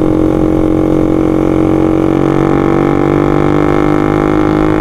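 Honda Sonic 150R's single-cylinder engine running at a steady pace through a full Marpoll aftermarket racing exhaust (header and silencer), a loud, even drone that holds one pitch.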